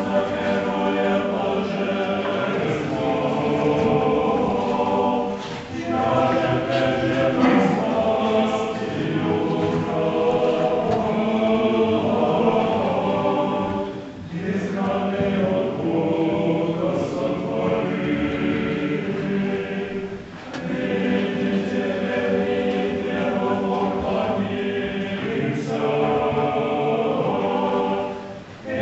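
Church choir singing Russian Orthodox liturgical chant without instruments, in long phrases with brief breaks between them.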